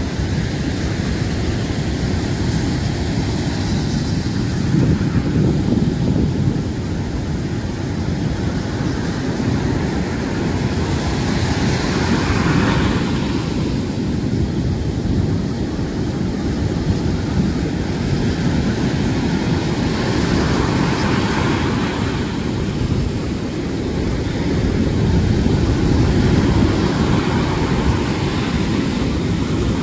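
Storm surf breaking on a sandy beach: a steady low rumble of waves, with the hiss of breaking crests swelling about twelve seconds in, again around twenty seconds, and near the end.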